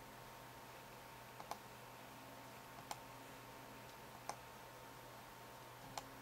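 Logitech G400 gaming mouse's buttons clicking four times, about a second and a half apart, each a faint press tick followed by a sharper click, over a faint steady hum.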